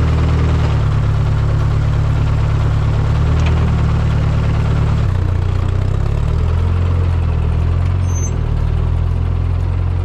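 1963 Ford 2000 tractor engine running low and steady. Its note shifts about five to six seconds in as the tractor pulls away under load, dragging ballast through the snow.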